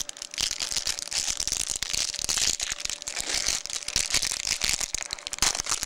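Bowman Chrome trading cards and their packaging being handled close to the microphone: a continuous crinkling and rustling with many small clicks.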